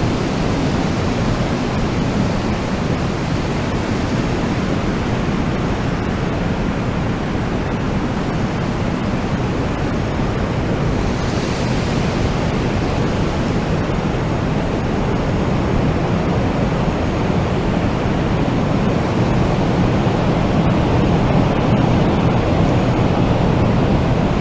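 Wind blowing steadily in a deep, even rush, swelling slowly and growing a little stronger near the end.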